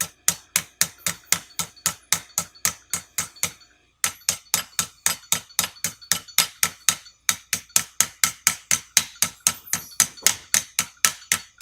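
Brass hammer gently tapping roll pins into a rivet squeezer's yoke head, quick even strikes about four a second, driving the pins in toward flush. The tapping stops briefly about four seconds in and again near seven seconds.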